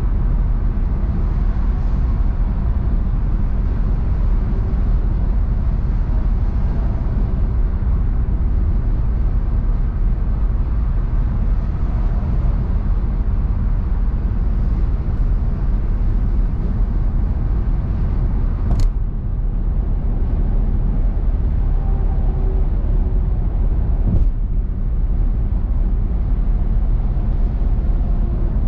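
Car driving at highway speed: a steady, deep rumble of tyre and engine noise. Two short, sharp clicks come through, one about two-thirds of the way in and another a few seconds later.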